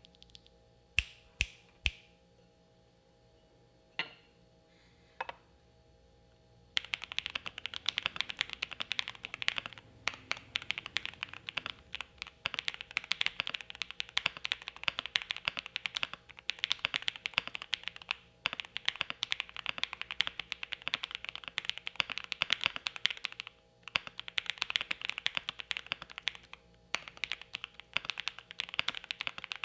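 Typing on a Jelly Epoch gasket-mount mechanical keyboard with a polycarbonate plate, full foam, lubed Creampaca switches and GMK keycaps. A few single keystrokes come first, then fast continuous typing begins about seven seconds in, with two brief pauses near the end. The keystrokes have the deep, muted, marble-like sound with a soft pop at the end of each stroke that its owner describes.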